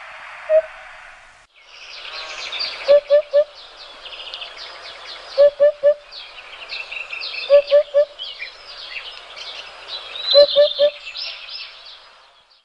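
Birdsong ambience: many small birds chirping and twittering, with a louder three-note call repeating four times, about every two and a half seconds. For the first second and a half there is a steady hiss with one call, then the sound changes abruptly to the birdsong.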